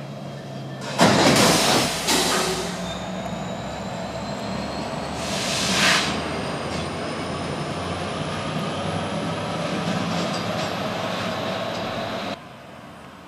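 Freight train hopper cars rolling slowly past, the wheels rumbling with a thin, high wheel squeal. Two short, loud bursts of hiss come about a second in and about five seconds in. The sound cuts off suddenly near the end.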